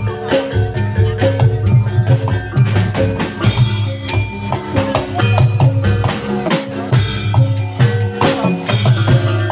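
Javanese gamelan ensemble playing: struck metallophones ringing out over a drum, with a steady beat and no pause.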